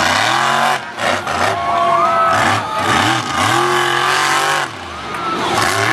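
Monster truck engine revving up and down in a series of throttle bursts, two of them longer, with a brief drop-off near the end before it picks up again.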